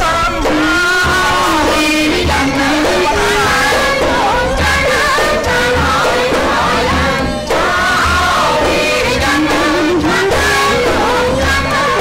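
Khmer yike theatre song: a single voice sings a wavering, ornamented melody over steady low beats from the large skor yike frame drums.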